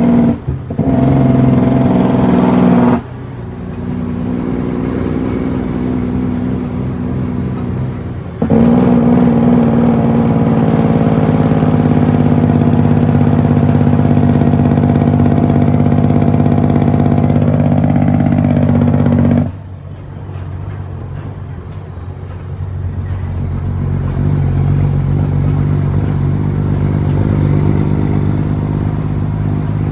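Western Star truck's diesel engine running. Its level drops sharply about three seconds in, jumps back up a few seconds later, drops again about two-thirds through, then builds back up gradually.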